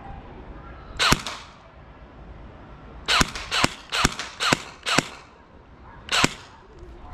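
Airsoft rifle firing seven single shots, each a sharp snap: one about a second in, five in quick succession about two a second, and one more near the end.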